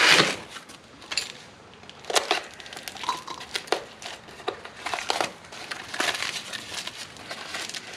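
Shredded paper packing and a cardboard box rustling and crinkling as hands dig through the box and unwrap a part, in irregular crackles, loudest right at the start.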